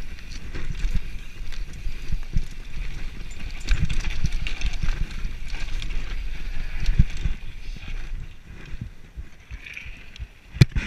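Downhill mountain bike ridden fast over a rough dirt forest trail, heard from a camera on the rider: continuous rumble of tyres on dirt and roots, with irregular knocks and rattles as the bike takes bumps, and wind on the microphone. A sharp, loud knock comes near the end.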